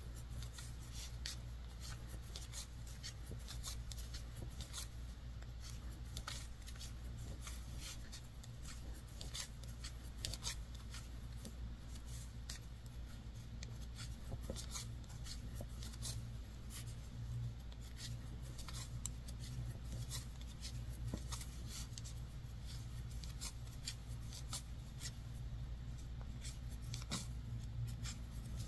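Wooden knitting needles clicking and sliding through fuzzy yarn as garter-stitch rows are knitted: small irregular ticks, several a second, with soft rubbing, over a steady low hum.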